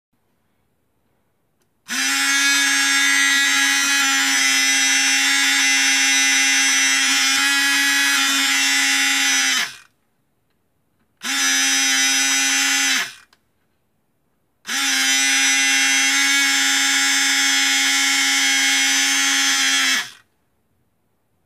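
A small electric motor running with a steady whirring whine in three runs: about eight seconds, then two, then five and a half. Each run starts abruptly and stops quickly, with a brief dip in pitch as it is switched off.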